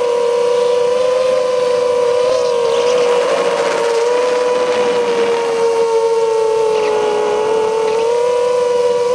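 Brushless motors and propellers of a 5-inch FPV quadcopter (2204, 2300 kV motors) whining steadily, heard from the camera mounted on the drone. The pitch wavers slightly with throttle, sagging a little about seven seconds in and rising again about a second later.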